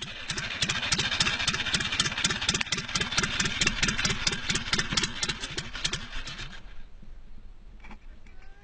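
An old engine running with a rapid, even knocking beat, about six beats a second, that fades away after about six and a half seconds.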